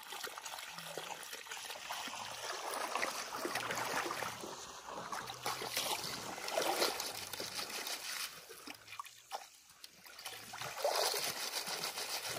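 River water sloshing and trickling through a wire-mesh basket of freshly caught fish as it is dipped and swished in shallow water to rinse them. The sloshing comes in surges, with a short lull about nine seconds in and a louder surge near the end.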